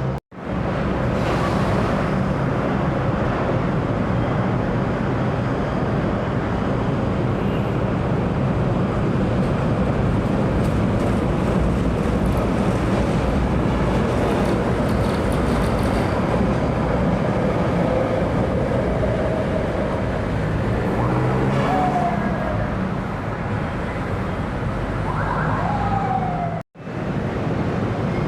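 An LRT-1 light-rail train running along the elevated line over steady street traffic noise, with a couple of short falling whines near the end.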